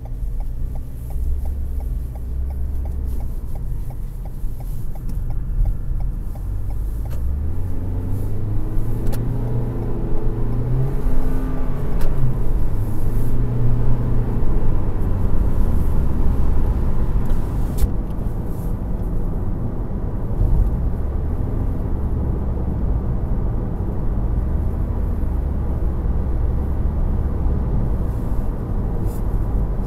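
Road and engine noise inside a 2020 Toyota Corolla Hatchback's cabin while it drives: a steady low rumble, with a regular light ticking in the first few seconds and an engine tone that rises and falls in the middle as the car speeds up.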